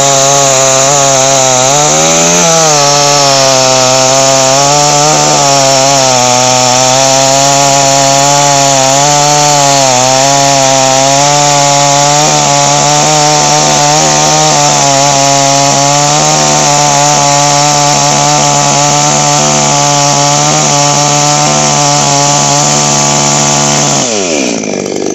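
Two-stroke petrol chainsaw running at high revs with its chain cutting through a log; the engine note wavers slightly as the cut loads it, then falls away steeply just before the end.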